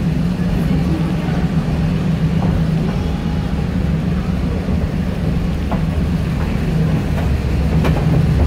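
Moving heritage passenger train heard from inside the coach: a steady low rumble of wheels and running gear on the track, with a few faint clicks.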